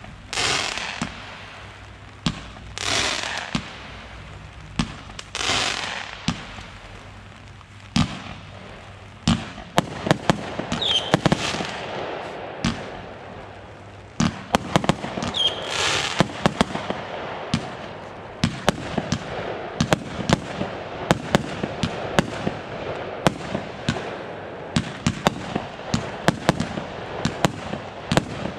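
Consumer firework battery firing. Three shots hiss up about two and a half seconds apart, each ending in a bang. From about nine seconds in comes a dense run of crackling and rapid sharp bangs, with a couple of short whistles.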